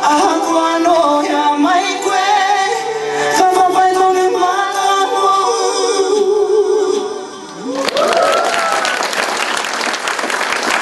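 A woman singing into a microphone, holding long notes; about three-quarters of the way through the song ends and the audience breaks into applause with cheers and whoops.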